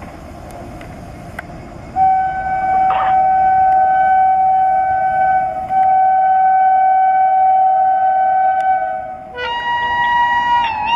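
Approaching train's locomotive air horn sounding one long steady blast, briefly broken once, then changing to a higher horn tone that wavers in pitch near the end, over a low rumble.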